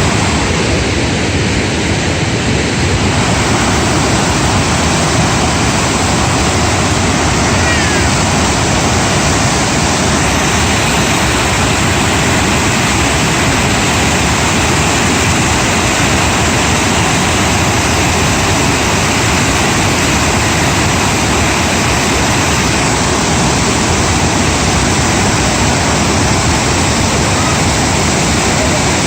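Steady rushing of fast-flowing floodwater, an even, unbroken roar.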